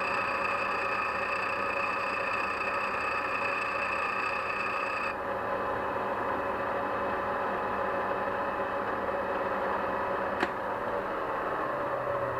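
Bench grinder with a diamond wheel running steadily while the worn tip of an engine valve is ground flat and square. A high steady whine runs over the motor hum and stops about five seconds in, and a single sharp click comes near the end.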